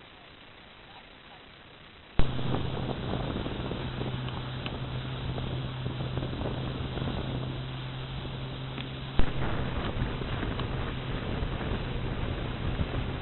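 An engine running steadily with a constant low hum, mixed with wind rushing over the microphone; it starts abruptly about two seconds in.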